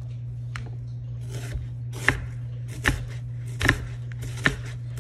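Chef's knife slicing thin rings off half an onion, each cut ending in a tap of the blade on a plastic cutting board. Four even strokes, a little under a second apart, begin about two seconds in.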